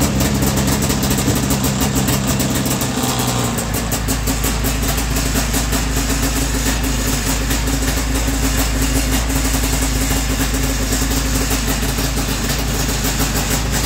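Vintage Arctic Cat El Tigre 6000 snowmobile's two-stroke engine idling. Its note changes about three and a half seconds in, then it runs steadily.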